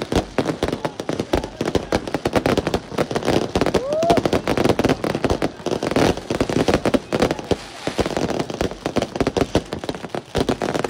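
Fireworks and firecrackers going off in rapid, overlapping bangs and crackles without a break, with a short rising whistle about four seconds in.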